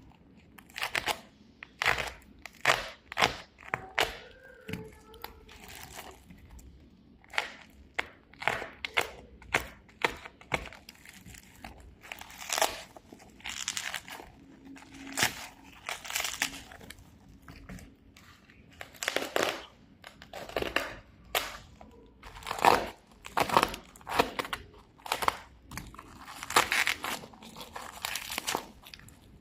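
Packaging being handled during an unboxing: repeated irregular crinkling and rustling, in short bursts.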